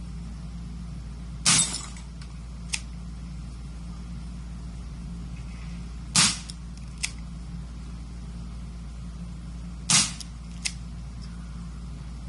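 Three single pistol shots, about four seconds apart, each sharp and brief. About a second after each shot comes a fainter single click.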